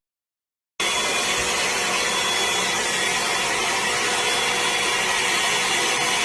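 A machine running at an even pitch, a steady whooshing noise with a faint thin high whine, which starts abruptly under a second in after a moment of dead silence.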